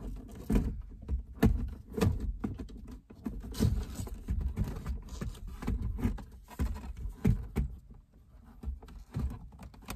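BMW E36 plastic instrument cluster being worked by hand out of its dashboard opening: irregular clicks, knocks and scraping of plastic against the dash and steering wheel.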